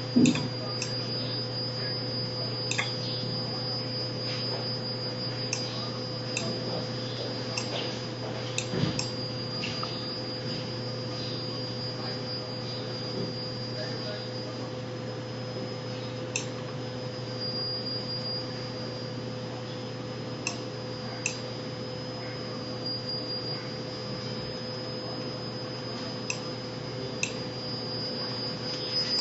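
Steady electrical hum with a high-pitched whine above it and a few faint clicks scattered through.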